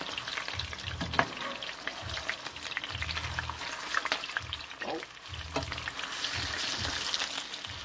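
Red snapper frying in hot oil in a frying pan, sizzling and popping with dense crackles. A metal spatula turning the fish adds occasional knocks and low thumps.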